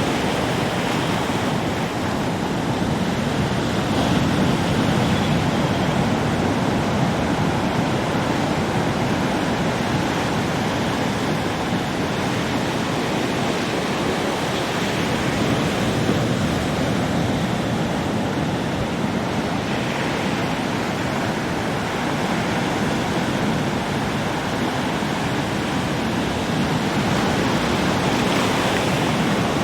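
Ocean surf: a steady wash of breaking waves with slow swells in loudness, some wind over it.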